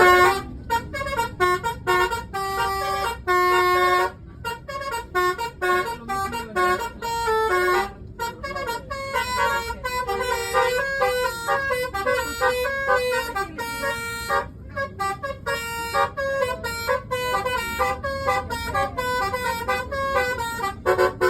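Telolet horn of an Indonesian tour bus playing a fast tune of short pitched notes, in several phrases with brief breaks between them.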